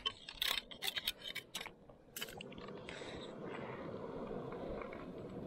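Hard clicks and scrapes of shell against rock as a shell is pried loose, a quick cluster over the first two seconds, then a steady soft rushing hiss.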